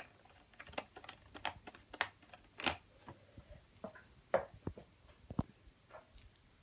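Faint, irregular light clicks and taps of a toy make-up set being handled: a brush and plastic cases knocking against a palette.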